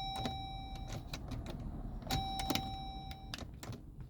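Chrysler Pacifica's dashboard warning chime: a steady electronic tone about a second long that repeats about every two and a half seconds. Scattered light clicks sound in between.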